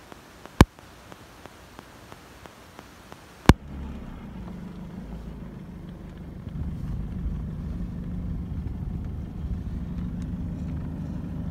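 Car heard from inside the cabin. For the first few seconds there is faint, regular ticking about three times a second, broken by two sharp clicks. About three and a half seconds in, a steady low engine and road rumble sets in, and it grows a little louder about halfway through.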